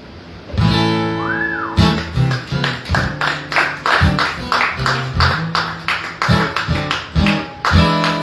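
Acoustic guitar: one chord is struck and left to ring, then steady rhythmic strumming starts about two seconds in.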